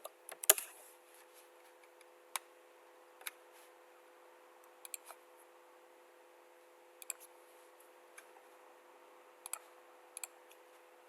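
Computer mouse clicking while operating CAD software: single clicks and quick double clicks every second or two, the loudest about half a second in, over a faint steady electrical hum.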